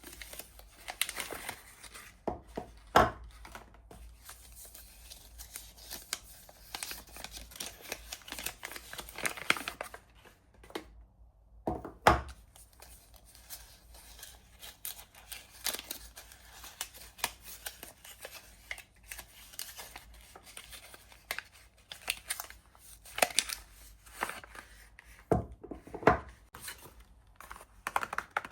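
Soap bar wrappers being torn and unwrapped: irregular tearing and crinkling of the packaging with scattered sharp taps and clicks, and a short pause about eleven seconds in.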